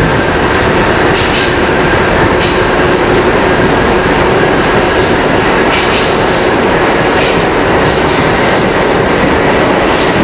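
A New York City 4-line subway car (R142-family) running at speed, heard from inside the car: a loud, steady rumble of wheels on rail. Rail-joint clatter comes every second or so, with brief high-pitched wheel squeals at several points.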